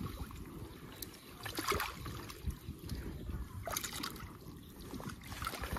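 Muddy water trickling and sloshing with a few soft splashes, as bare hands work water through a flooded eel burrow in the mud.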